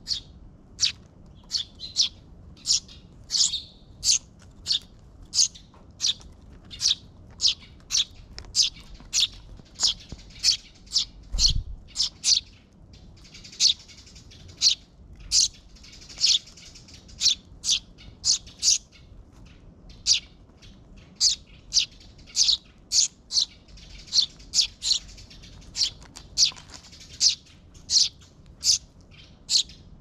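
Eurasian tree sparrows chirping, short high chirps repeated about twice a second: fledglings begging from a parent. A soft low thump about eleven seconds in.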